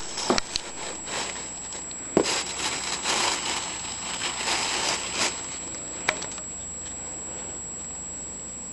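Rustling and scratching in a basket with a few sharp clicks, the loudest about two seconds in. The rustling stops a little after five seconds, and one more click follows.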